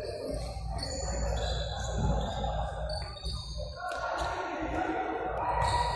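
Futsal being played in a large indoor hall: ball kicks and thuds off the hard court under the hall's echoing background, with music playing underneath.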